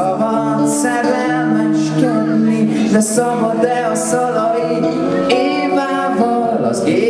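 A man singing a pop song live into a microphone, with guitar accompaniment.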